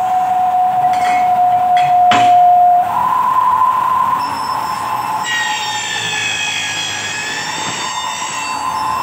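Milling machine motor and cutter whining steadily, stepping up in pitch about three seconds in, with a couple of sharp clicks before that. From about five seconds a high screech of several wavering tones lasts about three seconds as the cutter bites into the metal workpiece.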